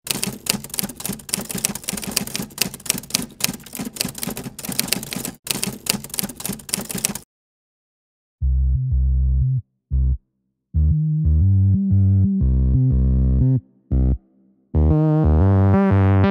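Rapid, irregular clicking like typewriter keys for about seven seconds. After a brief pause, music starts with short, deep held notes broken by gaps.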